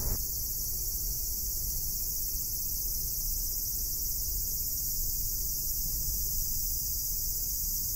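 Steady high-pitched drone of insects over a low rumble, unchanging throughout.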